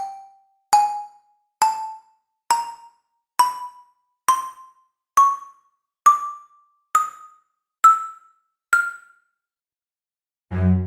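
Cartoon stair-climbing footstep effect: single bright struck notes like a xylophone, about one a second, each a step higher in pitch than the last, as if a character tiptoes up a staircase. The run stops, and after a short pause a low bowed string note starts near the end.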